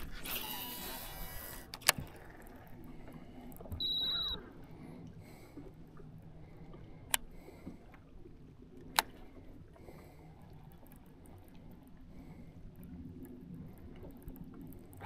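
Cast with a baitcasting rod and reel: the spool whirs as the line pays out for the first couple of seconds. About four seconds in there is one short, high electronic beep, then quiet reeling with a few sharp clicks.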